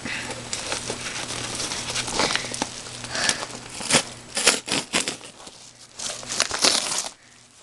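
A yellow padded mailer envelope being pulled and torn open by hand. Its paper and plastic crinkle continuously, with several sharp crackles in the second half.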